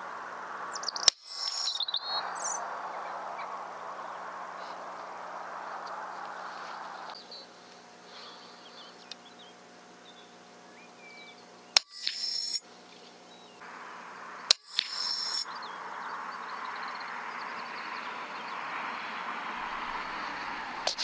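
Three shots from an FX Impact PCP air rifle: single sharp cracks about a second in, near twelve seconds and near fourteen and a half seconds in. Between them is a steady outdoor hiss with faint bird chirps.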